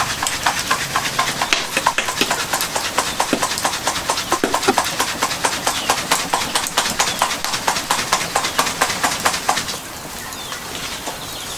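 Fish-feed pellets being stirred and turned in a hot earthenware pan (wingko): a fast, irregular run of clicks and rattles that stops about ten seconds in.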